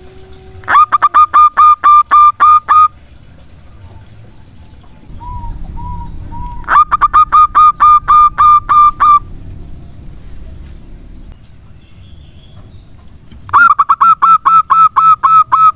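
Zebra dove (perkutut) singing close up: three loud bouts of rapid, evenly repeated cooing notes, about four notes a second, each bout lasting about two seconds. A few faint single coos sound between the first two bouts.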